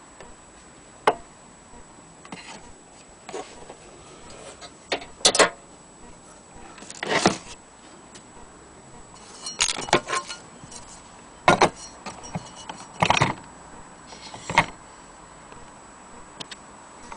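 Irregular clicks, knocks and short metallic rattles from an HMV Model 101 portable gramophone being handled, about a dozen separate sounds with a few longer rattling scrapes among them.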